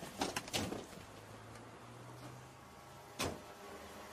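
A few quick knocks and clatters, then a single sharp knock about three seconds in. A low steady hum runs underneath and stops at that last knock.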